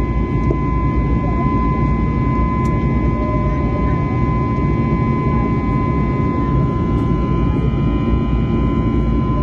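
Jet airliner cabin noise in flight: a loud, steady rush of engines and airflow, with a constant high whine above it.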